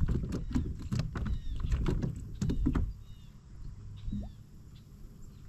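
Rapid clicks and knocks from a fishing kayak and its rod-and-reel tackle while a fish that has just struck is reeled in. The clicks are dense for about three seconds, then grow quieter.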